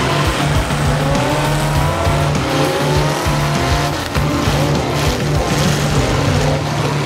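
Demolition derby cars' engines revving under load while their tires squeal and spin on the wet track, with wavering, gliding squeals over a steady low engine drone.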